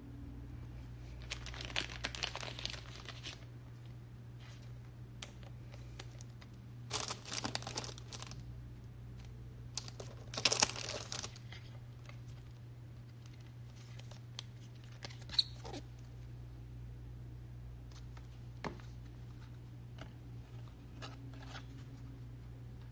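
Plastic crinkling in three bursts of a second or two each, with scattered light clicks in between: trading cards and plastic card sleeves being handled.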